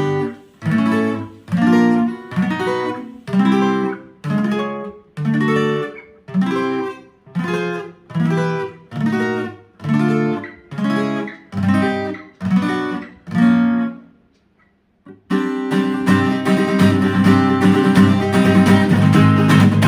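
Fender CD-60 V3 steel-string dreadnought acoustic guitar being strummed. Single chords are struck just under one a second and each is left to ring and fade. After a short pause about fourteen seconds in, continuous, fuller strumming starts.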